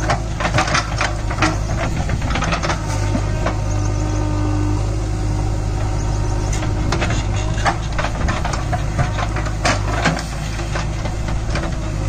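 JCB 3DX backhoe loader's diesel engine running steadily under digging load, with irregular knocks, clanks and cracks from the backhoe bucket tearing into soil and roots around a tree stump.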